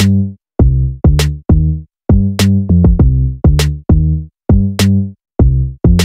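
Electronic backing music with a drum-machine beat: punchy, deep bass hits in a steady rhythm, with a sharp snare-like hit about every 1.2 seconds.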